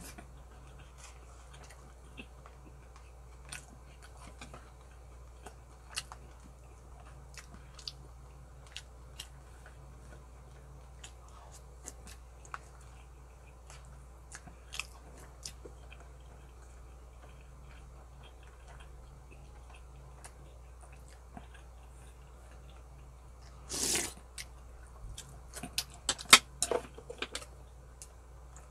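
Close-up eating of spicy braised pork ribs: chewing with scattered small sharp clicks. About 24 seconds in there is a brief louder noise, then a quick flurry of sharper clicks.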